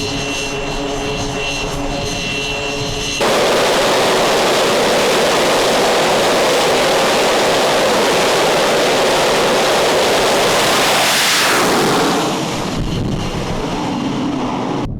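Military jet engines on a carrier flight deck. First a steady high jet whine, then, after an abrupt cut, a much louder jet roar. Around the eleventh second the roar sweeps down in pitch as the jet passes, then it falls away.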